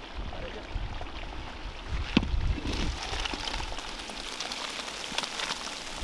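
Hot tempering oil (tadka) poured onto a large pot of khichdi, sizzling and crackling, with one sharp click about two seconds in.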